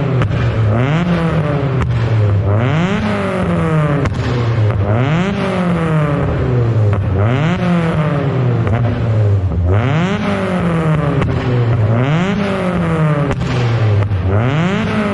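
Peugeot 106 GTi's 1.6 16-valve four-cylinder engine, on a 60 mm straight-through exhaust, revved repeatedly: about every two seconds the revs climb quickly and then fall back slowly, with occasional sharp pops on the way down. The exhaust echoes in a tunnel.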